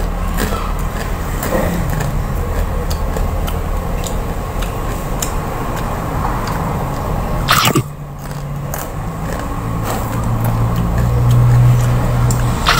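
An engine running steadily, growing louder in the last few seconds, with a brief sharp noise about seven and a half seconds in.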